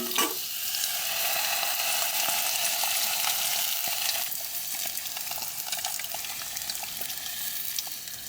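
Potato pieces frying in hot oil in a pot, sizzling and crackling steadily while being stirred, with a short clank at the start.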